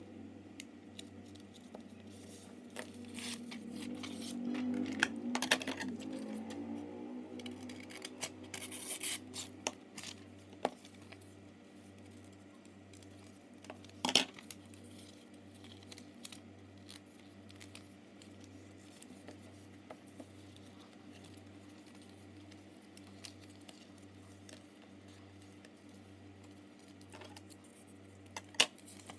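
Paper being folded and creased by hand on a table, with scissors cutting it: scattered rustles, snips and light clicks. The sharpest click comes about 14 seconds in. A faint steady hum sits underneath.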